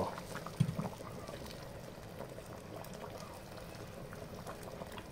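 Boiling water poured in a thin stream into a cast-iron pan of pork rib and canjiquinha stew, splashing and fizzing as it hits the hot food. A short thump comes about half a second in.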